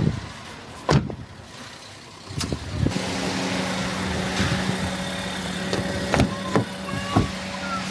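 Two sharp thuds, then a car engine comes on about two and a half seconds in and runs at a steady idle, with a few light knocks over it.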